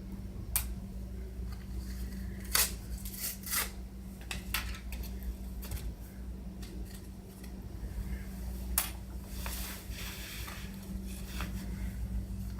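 Packaging and small objects being handled while unboxing: a few sharp clicks and snaps with rustling in between, over a steady low hum.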